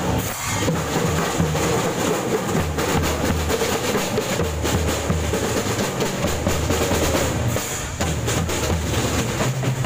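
A school marching drum band playing in the street: snare drums, tenor drums and bass drums beating a steady marching rhythm.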